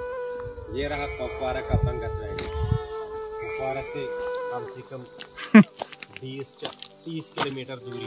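Steady high-pitched insect chorus, with a slow melody of held notes underneath. A brief loud sweep falling in pitch about five and a half seconds in.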